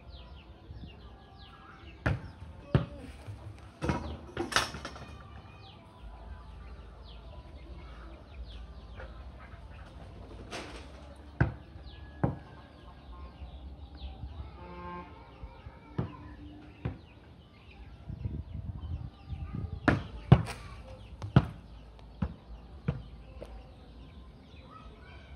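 A volleyball being struck and bounced by hand: a dozen or so sharp smacks at irregular intervals, some in quick pairs. Chickens cluck in the background.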